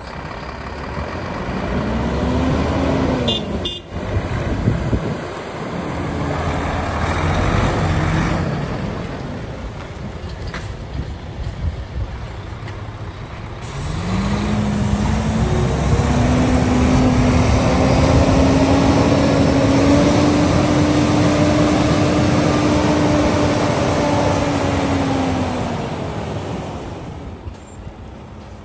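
Volvo FH 500 tractor unit's six-cylinder diesel engine driving around the yard. Its note rises as it pulls away about halfway through, holds steady for several seconds, then falls and fades as the truck slows near the end.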